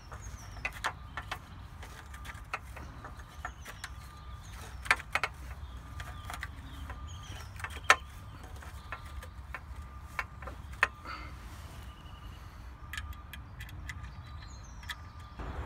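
Scattered metallic clicks and knocks as aluminium chainsaw-mill rails and their sliding brackets are handled and their bolts loosened by hand, the sharpest knocks about five and eight seconds in, over a steady low rumble.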